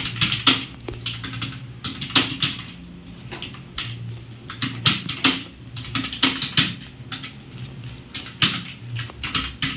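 Computer keyboard being typed on: quick, irregular key clicks in bursts.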